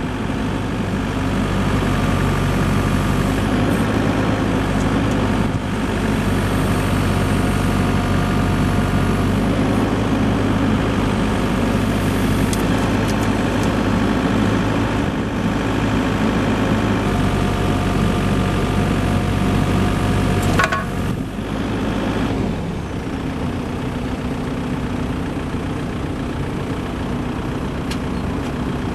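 Volvo BL60 backhoe loader's diesel engine running steadily, with a higher whine coming and going above it. A sharp click comes about 21 seconds in, after which the engine settles to a lower, quieter idle.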